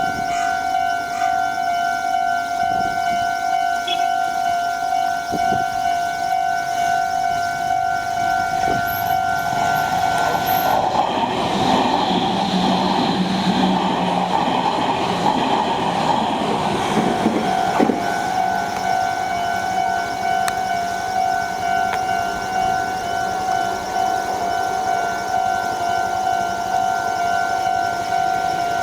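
Japanese level-crossing warning bell ringing steadily, with a Meitetsu train passing through the crossing for about eight seconds in the middle, its running noise rising over the bell and then falling away.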